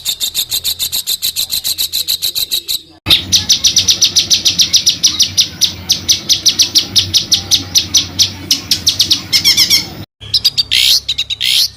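A recorded African songbird repeating a rapid, even roll of sharp high notes, about eight a second. The roll breaks off abruptly and restarts about three seconds in and again near the end, as in an edited loop of the song.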